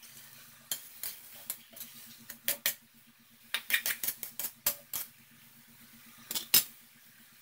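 Metal spatula scraping and knocking against a steel wok while stir-frying chopped cabbage: a string of sharp clanks and scrapes, busiest around the middle, with the loudest two knocks near the end.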